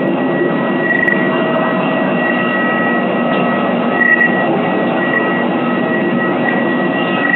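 Jet turbine of a parked airliner running: a steady rushing noise with a thin, high whine that holds one pitch.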